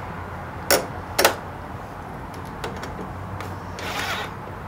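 Small metal clicks and a short scrape of screws being fitted and driven to mount a motorcycle dash shelf: two sharp clicks about a second in, then a brief scraping near the end, over a steady low hum.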